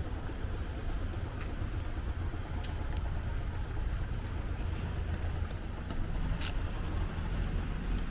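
Outdoor background noise: a steady low rumble with a few faint short clicks.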